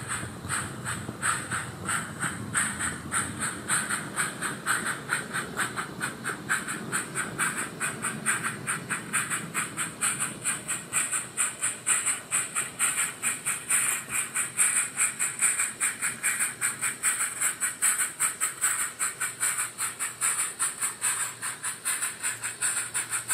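Live steam model Hunslet narrow-gauge locomotive fitted with a Summerlands Chuffer, chuffing steadily as it hauls its train. It gives even, hissy exhaust beats at about three a second.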